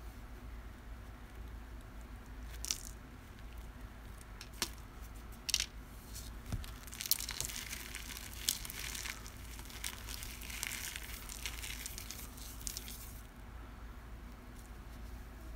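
Chunks of cornstarch crushed and crumbled by hand. A few separate sharp crunches come first, then several seconds of dense, fine crackling and crumbling in the middle, which tails off near the end.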